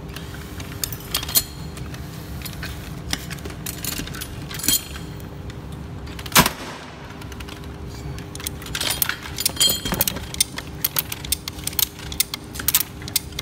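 Scattered plastic clicks and clatter from a handheld trip-unit tester being keyed and handled beside an air circuit breaker, with one sharp, louder click about six seconds in. The clicks come thick and fast in the last few seconds.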